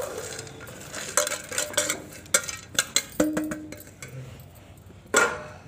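Chopped dry fruits and nuts tipped and scraped by hand off one steel plate onto another, with a run of sharp clinks and clatters of the steel dishes about a second in and another near the end.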